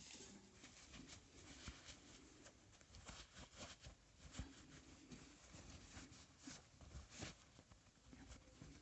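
Faint, irregular scratching and light clicks of small hand work, near silence.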